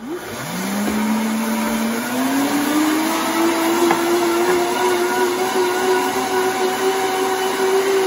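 Princess House Vida Sana 1500-watt high-power blender puréeing guajillo chiles with garlic and broth on its dips program. The motor starts up, holds a lower whine, then about two seconds in rises to a higher steady whine and keeps running.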